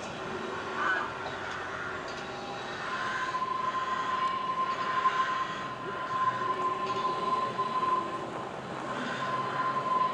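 Manx Electric Railway tramcar 5 and trailer 44 running round a curve, with a steady high-pitched wheel squeal setting in about three seconds in and holding on.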